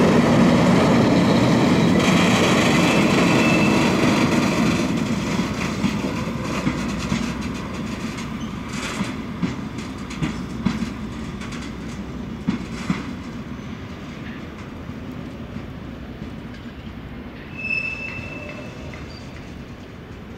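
Freight train of tank wagons hauled by DB Cargo diesel locomotive 6411 rolling past, its steady rolling noise fading as it draws away. A few sharp wheel clacks come in the middle, and a short wheel squeal sounds at the start and again near the end.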